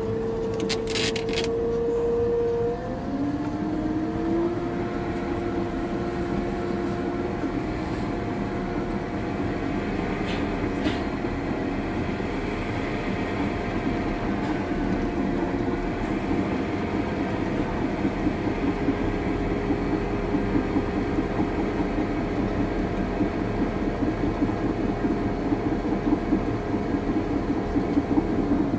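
CAT D6 bulldozer working under load: a steady engine drone with a whine that drops in pitch about three seconds in and then climbs slowly back up, over the clanking of its tracks, which grows busier in the second half.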